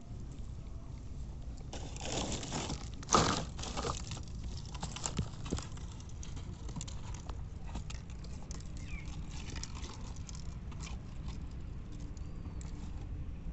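Handling noises of fishing gear: rustling about two seconds in, one sharp loud click a little after three seconds, then scattered light clicks, over a steady low background rumble.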